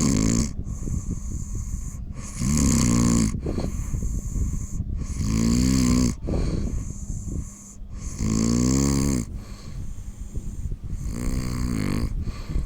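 A person snoring loudly, one long pitched snore on each in-breath about every three seconds, over the steady running of a foot-kneading massage machine.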